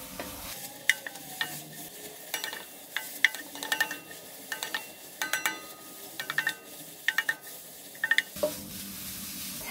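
Julienned carrots being stir-fried in a stainless steel wok with a faint sizzle. Two spatulas, one of them wooden, scrape and knock against the pan at irregular moments, and many knocks leave a short metallic ring.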